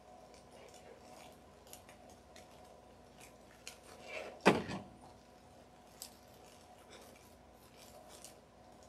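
Light rustles and small clicks as the ruffled coffee-filter angel wings on their foam board are held and shifted on a table, with one louder knock about halfway through, over a faint steady hum.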